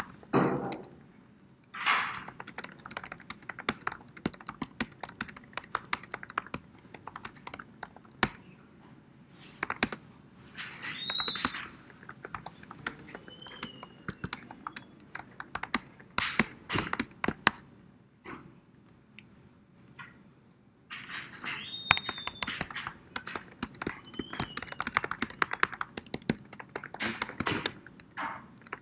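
Typing on a computer keyboard: irregular runs of key clicks with short pauses, close to the microphone.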